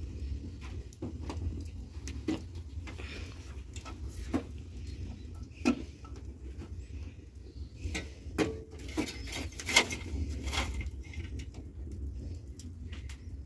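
Open wood fire crackling, with irregular sharp pops and light knocks and scrapes as the fire is tended, over a low steady rumble; the pops come thickest a little past the middle.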